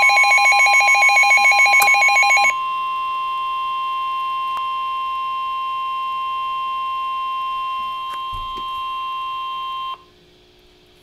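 NOAA Weather Radio's steady 1050 Hz warning alarm tone, the signal that a warning is about to be broadcast. For the first two and a half seconds a fast-pulsing beep sounds over it. The tone cuts off abruptly about ten seconds in.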